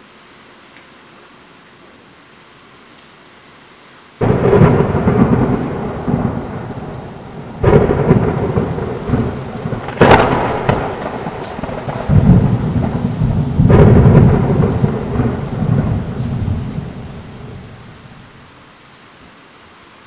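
Thunder over steady rain: a sudden crack about four seconds in, then rolling rumbles with three more sharp claps, dying away near the end and leaving only the rain's hiss.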